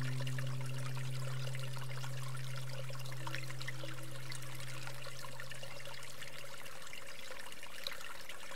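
Mountain stream running over rocks, a steady rush of water. A low droning tone under it fades out after about six seconds.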